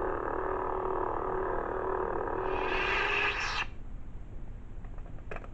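Lightsaber sound board playing the blade's steady electric hum through the hilt speaker. About two and a half seconds in it swells into a brighter, rising sound and cuts off abruptly, as with a blade power-down sound. One short click comes near the end.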